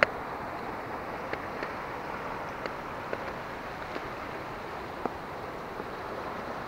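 River water running over small rapids: a steady, even rush, with a sharp click at the very start and a few faint ticks scattered through.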